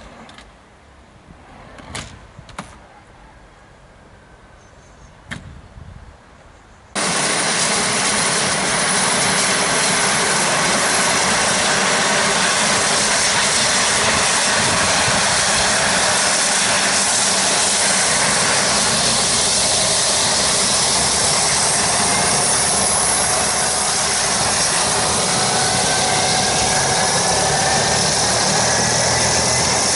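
Kazan Ansat air-ambulance helicopter's twin turboshaft engines and rotors running up on the ground before takeoff. A loud, steady turbine noise starts abruptly about seven seconds in, with whining tones that rise in pitch as the engines spool up. Before it there are only a few sharp clicks.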